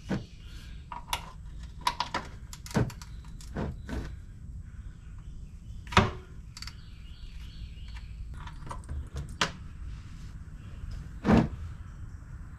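Scattered clicks and knocks of hand tools and parts being handled, a dozen or so sharp separate strikes, the loudest about six seconds in and another near the end.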